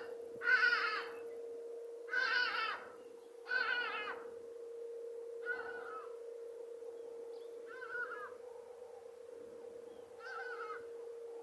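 A peacock calling in a series of six loud, wavering, cat-like calls about two seconds apart, the later ones fainter. A steady hum runs underneath.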